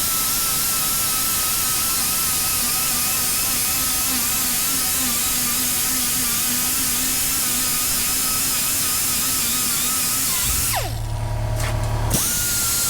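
Angle grinder with a 36-grit disc grinding fiberglass and body metal down to bare metal, its whine wavering under load. About ten seconds in it winds down, then spins back up and carries on.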